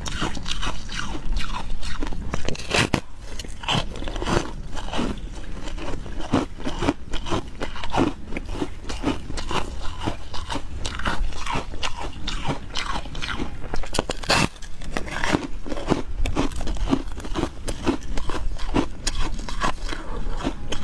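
A thick disc of ice bitten and crunched between the teeth close to the microphone: a continuous run of sharp cracking crunches as it is chewed, with a few louder snaps of fresh bites.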